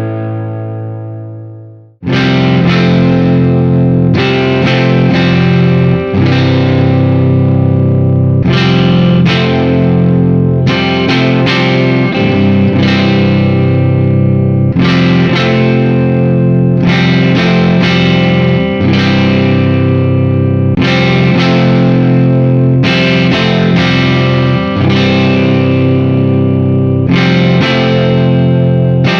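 Gibson Les Paul with PAF-style humbuckers, played through a distorted amp. A held chord rings out and dies away, then about two seconds in a new passage starts abruptly, with chords struck every second or so.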